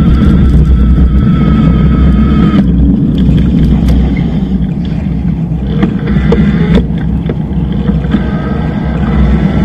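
Wind buffeting and road rumble on a bike-mounted action camera as a Bosch-powered e-bike rides along, with a steady high whine that drops out for a few seconds in the middle and comes back near the end. A few sharp clicks and rattles sound in between.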